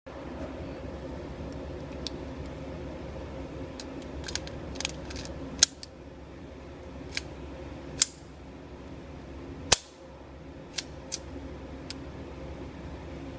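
A .22 LR 1911 pistol, a GSG conversion slide on a KWC airsoft frame, firing single shots in an indoor range booth. There are three loud sharp shots a couple of seconds apart in the middle, with several fainter cracks around them, over a steady background hum.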